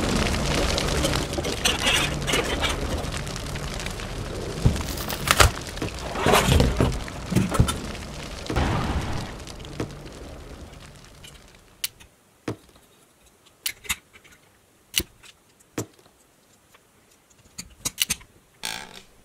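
A loud rumbling, crashing noise with a low hum and several knocks, fading away after about ten seconds. Then, in near silence, a scattering of sharp single clicks: LEGO plastic pieces being snapped onto a toy fire truck.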